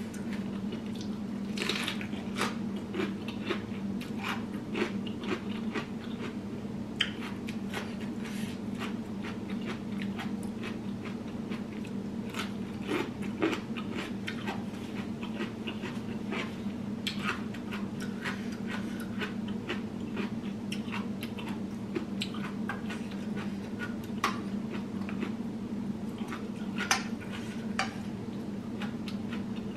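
Close-up sounds of a person eating: chewing, with wet mouth clicks scattered throughout and occasional chopstick taps against a bowl, over a steady low hum.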